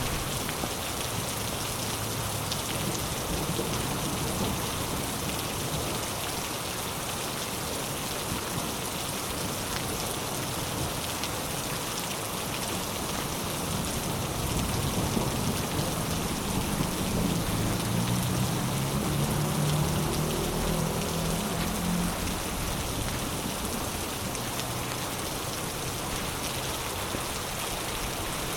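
Heavy rain falling steadily in a storm, a dense even hiss of rain. From about halfway through to about three-quarters of the way, a low rumble swells under the rain and then fades.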